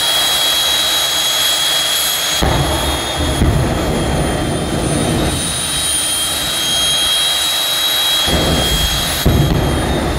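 Jet turbine engine of a jet-powered drag car running loud with a steady high-pitched whine. Its deep rumble swells and drops abruptly several times.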